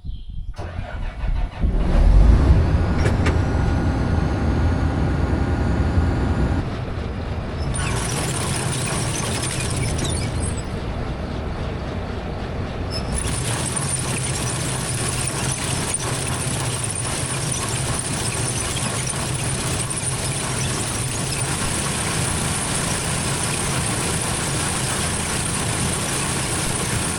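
An engine starts about two seconds in and then runs steadily. A high hiss joins it about eight seconds in and again from about thirteen seconds on.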